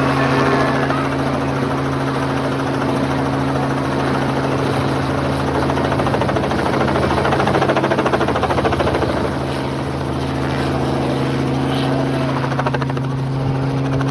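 Helicopter flying, a steady low engine drone with the rapid beat of its rotor blades, loudest about eight seconds in.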